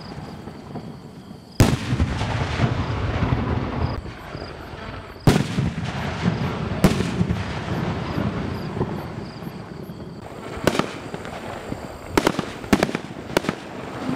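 2.5-inch aerial fireworks shells from a Dun Pai Prestige A1 assortment bursting overhead. Three loud booms come about a second and a half in, at about five seconds and just under seven seconds, each followed by a long rumbling tail. A run of smaller, sharper cracks follows near the end.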